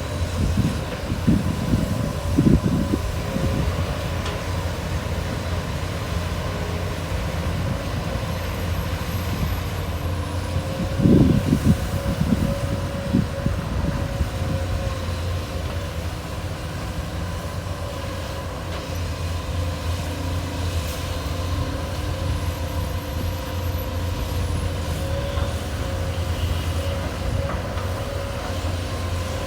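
Large diesel excavator running steadily with a thin steady whine above the engine drone. Louder low rumbles come in the first few seconds and again about eleven seconds in.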